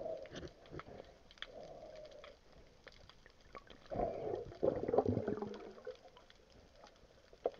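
Muffled underwater sound heard through a waterproof camera housing: scattered faint clicks and crackles, with muffled gurgling surges near the start, about a second and a half in, and strongest between about four and six seconds in.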